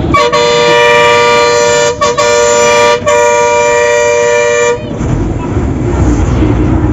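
Vehicle horn sounded in three long blasts, a steady high two-note tone, cutting off near five seconds in. After it comes the low rumble of engine and road noise.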